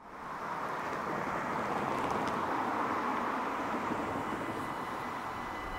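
Road traffic: cars passing, a steady rush of tyre and engine noise that fades in at the start.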